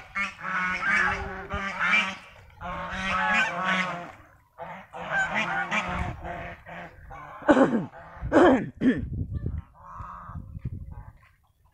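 Domestic geese honking in a run of loud, repeated calls, with several sharp downward-sliding honks about eight seconds in and fainter calls near the end.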